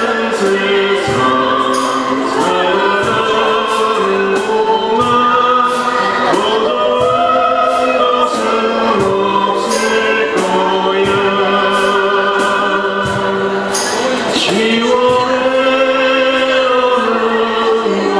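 Live acoustic band music: sung vocals over two strummed acoustic guitars, with a cajon keeping the beat and light high percussion ticks.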